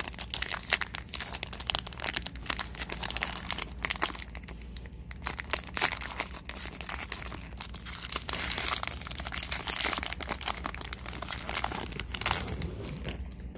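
Trading-card pack wrapper being torn open and crinkled by hand, a continuous run of sharp crackles that eases off near the end.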